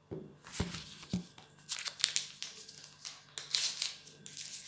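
Rustling and crinkling in short bursts, with two dull knocks about half a second and a second in.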